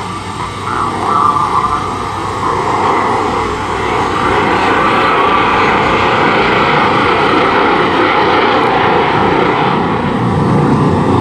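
Jet engine noise from aircraft flying past at an air show, most likely the Snowbirds' CT-114 Tutor jets: a dense roar that builds over the first few seconds and then holds loud and steady.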